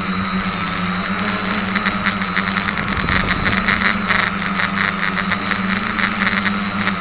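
Quadcopter's electric motors and propellers humming steadily, heard through a camera mounted on the craft. From about two seconds in until near the end, a rapid crackling ticking rides over the hum.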